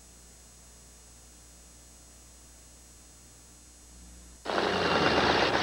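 Faint, steady electrical hum of an old video recording, with no other sound. About four and a half seconds in it cuts abruptly to a loud, even rush of stadium noise.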